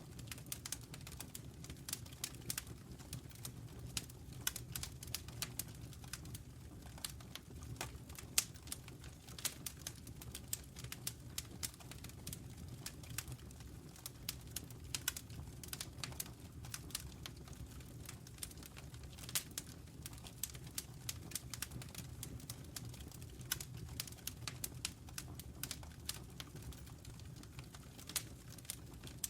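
Wood fire burning in a fireplace, crackling with frequent irregular pops and snaps over a low, steady rumble of the flames.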